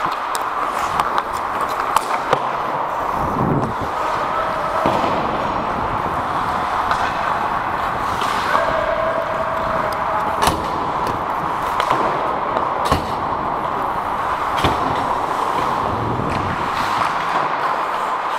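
Ice hockey play heard from among the players on the ice: a steady hiss of skates and rink noise with frequent sharp clacks of sticks and puck, a few of them louder knocks.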